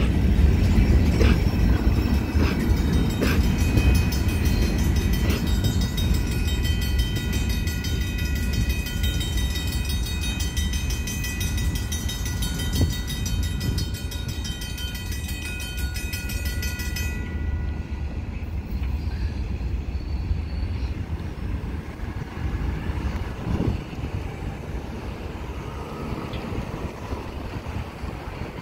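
Union Pacific freight train's covered hopper cars rolling past, a low rumble with a few wheel clacks early on, fading as the train moves away. A level-crossing warning bell rings rapidly over it and stops suddenly about two-thirds of the way through, as the crossing clears.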